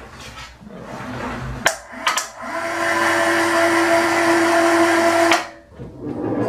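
Electric hoist on a small overhead bridge crane lowering a heavy lathe faceplate in a sling: a couple of sharp clicks about a second and a half in, then the hoist motor runs with a steady whine for about three seconds and cuts off abruptly.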